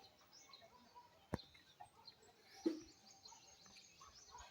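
Faint bird chirps, with a sharp click about a second and a half in and a soft thump a little past halfway.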